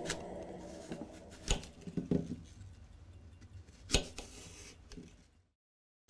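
A small knife cutting up an apple on a china plate: a few sharp clicks and taps as the blade goes through the fruit and meets the plate, spaced a second or two apart.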